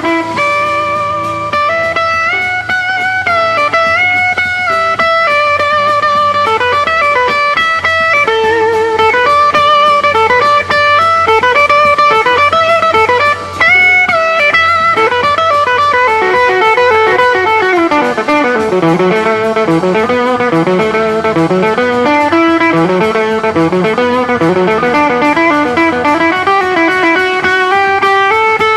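Solo electric guitar, a 1958 Gibson Les Paul Standard, playing a flowing lead melody of quick note runs, with a brief drop in level about halfway through.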